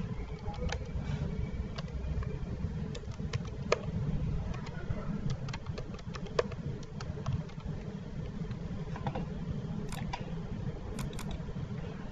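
Computer keyboard typing: irregular key clicks over a steady low background rumble. Near the end there is a single mouse click, then a quick double-click.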